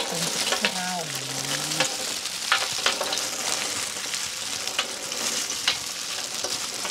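Oranges being squeezed by hand for juice: a steady wet crackling with many sharp clicks.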